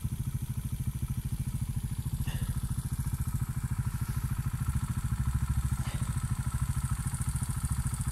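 Beta Alp 200's single-cylinder four-stroke engine idling steadily, with a fast, even pulse.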